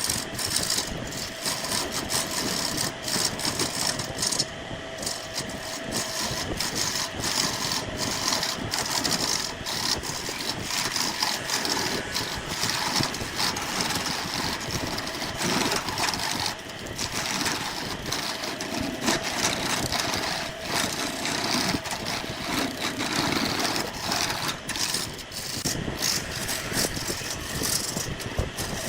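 A machine running steadily with a rattle and many short knocks throughout.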